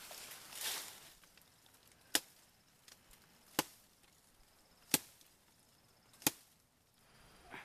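Four chops of a blade into a green tree branch, evenly spaced a little over a second apart, after a brief rustle of leaves.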